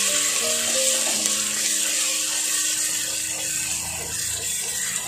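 Sliced onions sizzling steadily in hot coconut oil in a stainless-steel pressure-cooker pot as they are stirred with a wooden spoon. Soft background music with a few held notes plays along.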